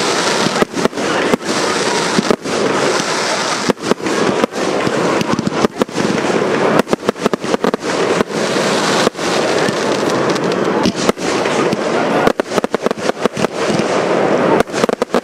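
Firework batteries firing in quick succession: a dense run of launch thumps and bursting reports over continuous crackling. The reports come thickest about seven seconds in and again near the end.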